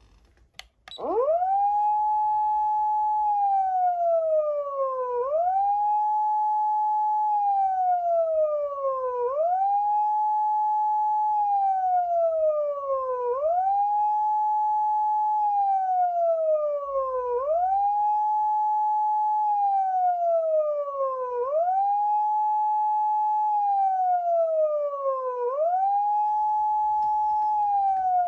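Clarion A-600F electronic siren amplifier sounding a non-standard siren tone, unlocked with its internal DIP switches. It starts suddenly about a second in. Each cycle snaps up in pitch, holds briefly, then slides slowly down, and repeats about every four seconds.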